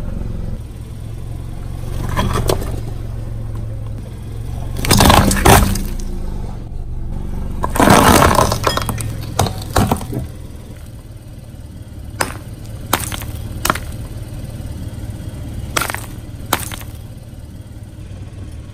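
Car tyre crushing blocks of ice with fruit frozen inside, with two loud cracking and shattering crashes about five and eight seconds in and crackling after each. A few short sharp cracks follow later, over the car engine's low steady idle.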